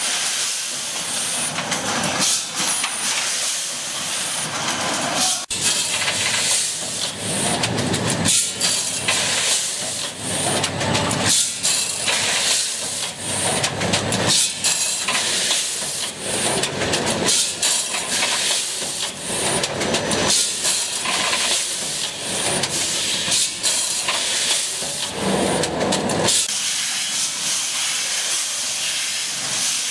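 Automatic quad-seal bag packaging machine running: a constant hiss of compressed air with repeated short pneumatic bursts and mechanical clatter.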